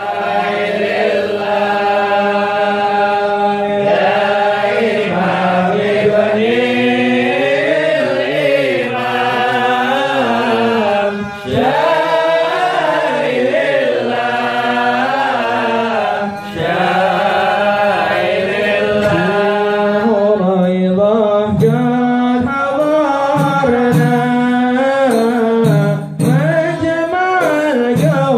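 A group of men singing an Arabic qasidah (devotional song) together, in long drawn-out phrases with brief pauses for breath. From about twenty seconds in, sharp drum strikes join the singing.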